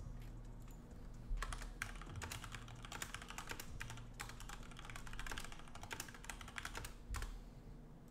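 Typing on a computer keyboard: a quick, uneven run of key clicks that starts about a second in and stops about a second before the end.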